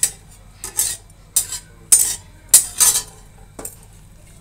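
Flat steel spatula scraping and stirring in an aluminium kadhai with a little hot oil and bay leaves: about six short metal-on-metal scrapes, roughly one every half second or so.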